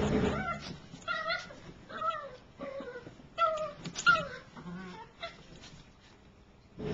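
Maltese puppy yipping and whining in a string of short cries that each fall in pitch, about seven in three seconds, with a last fainter one a second later. Background music fades out at the start.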